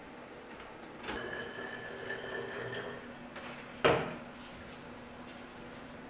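Water poured from a plastic bottle into a plastic dispenser bottle, running for about two seconds with a clear ringing pitch, then a single sharp knock about four seconds in, the loudest sound.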